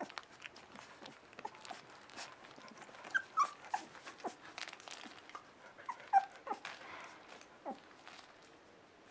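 Three-week-old puppies whimpering: short, high squeaks that slide downward, a bunch about three seconds in and another, the loudest, about six seconds in, with small clicks between them.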